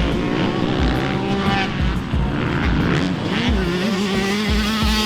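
Two-stroke dirt bike engines revving hard, pitch rising and falling through the gears, with a regular low thudding underneath.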